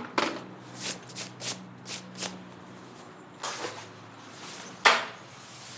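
A series of light, irregular clicks and rustles of objects being handled, with a longer rustle about three and a half seconds in and a sharp knock just before the end.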